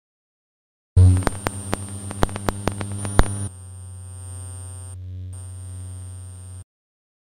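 Experimental electronic noise music. After a silent opening, a low buzzing hum with a thin high whine comes in, broken by a quick, uneven run of sharp clicks. It then settles into a quieter steady hum that cuts off suddenly.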